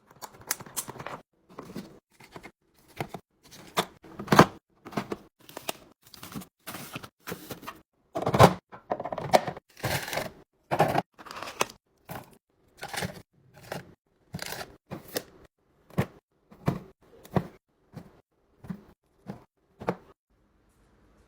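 Snacks and drinks in plastic packaging being handled and set into a fridge drawer: a string of separate clacks, taps and plastic crinkles, one to three a second, with a longer stretch of rustling and tearing about eight seconds in.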